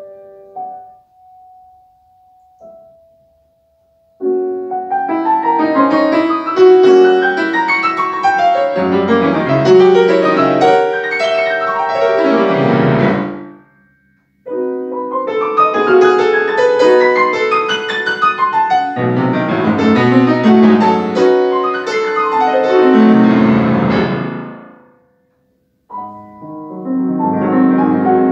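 Grand piano played solo: a few quiet, sparse notes, then two loud, fast passages of sweeping runs and chords, each breaking off into about a second of silence, and a new passage beginning near the end.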